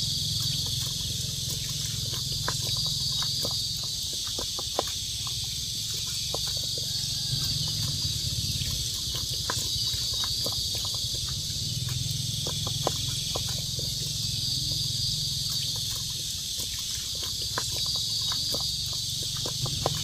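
Night-time insect chorus: crickets trilling in a steady high band that swells and fades every few seconds, over a low drone. Many short clicks and rustles are scattered throughout.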